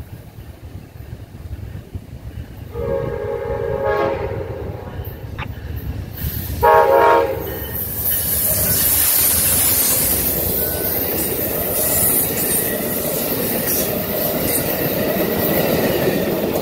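Amtrak GE P42DC diesel locomotive sounding its horn in two blasts, a longer one about three seconds in and a short, loud one near seven seconds, then the passenger train passing close by with diesel engine and steel wheels running on the rails.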